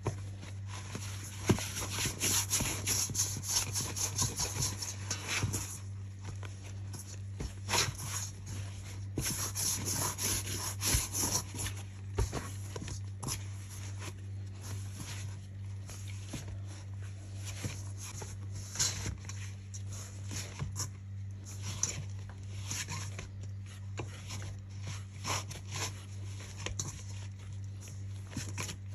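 Hands kneading bread dough in a stainless steel bowl: repeated rubbing, squishing and scraping of dough and flour against the metal, busiest for a few seconds after the start and again around ten seconds in. A steady low hum lies underneath.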